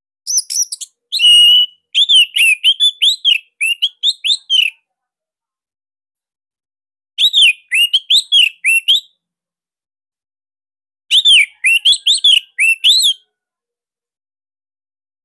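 Orange-headed thrush (anis merah) singing in three loud bouts of quick, sharp whistled notes with short pauses between. The first bout opens with a brief held whistle, and the phrases are the 'sirtu' imitations that keepers use as song-training material.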